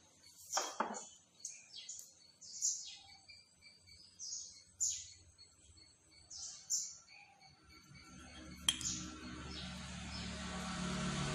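Small birds chirping in short, high, irregular calls, with a sharp knock about half a second in. From about eight seconds a low engine rumble of a passing vehicle rises steadily.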